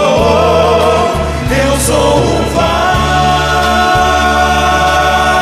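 Male vocal group of five singing a gospel worship song in close harmony, holding long chords that change pitch together, over a steady low bass.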